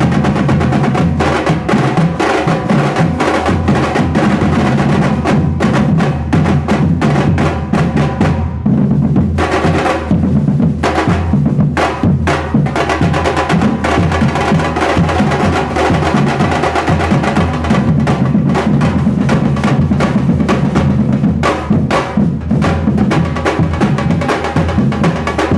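Percussion group playing loud, dense drum music, with many sharp strokes over a steady low drumming.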